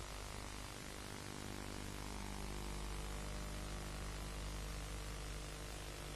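Steady tape hiss with a low mains hum from VHS playback, with no music over the studio logo.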